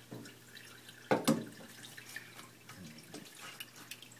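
Water splashing and dripping faintly as hands lightly rinse salt-rubbed bluegill pieces in a small stainless steel pot, washing off the salt and fishy smell. One louder knock about a second in.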